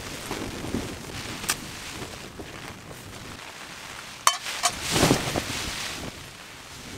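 Steady hiss of rain and wind on the tent, with two sharp metallic clanks about four seconds in as a frying pan is set onto the stand of a lit spirit burner, followed by a short rustle.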